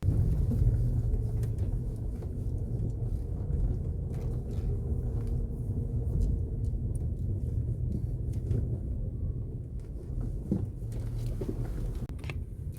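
Steady road and drivetrain rumble inside a Volkswagen Taigun's cabin on the move, with only a few faint ticks. The door-beading squeak, taped over as the fix, is much reduced or almost gone.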